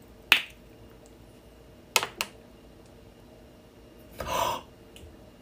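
Handling noise from a plastic toothpaste tube being twisted and squeezed: a sharp click near the start, two quick clicks about two seconds in, and a short rushing noise a little after four seconds.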